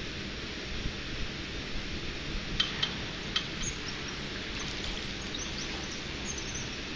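Steady rushing noise of water from the nearby dam, with a few short bird chirps in the middle and some faint high chirps near the end.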